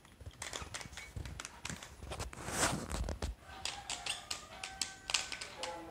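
A stickerless plastic 3x3 speed cube being turned quickly by hand, its layers clacking in a rapid run of clicks. A brief rushing noise comes about halfway through, and faint musical tones sound in the second half.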